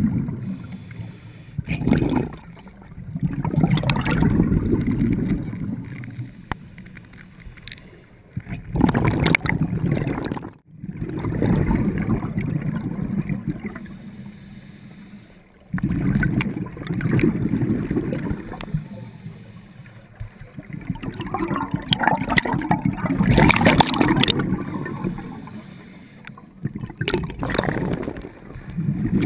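Scuba diver breathing through a regulator underwater: a hiss on each inhale, then a rumbling rush of exhaled bubbles, repeating every few seconds.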